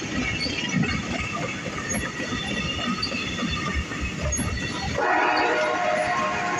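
Amtrak passenger train cars rolling past, wheels clicking over the rail joints. About five seconds in a higher, steady tonal sound joins, heard as a wheel squeal.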